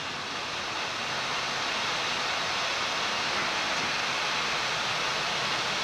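Steady rush of air on a Boeing 787-9 flight deck on final approach, with the landing gear down and landing flaps set. It swells slightly over the first two seconds, then holds even.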